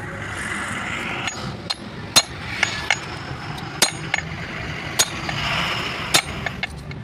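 Socket wrench with a bar handle turning a bolt on a truck propeller shaft's universal-joint yoke, giving sharp metal clicks and clinks at irregular intervals, about one every half second to second, with scraping and rustling of metal parts between them.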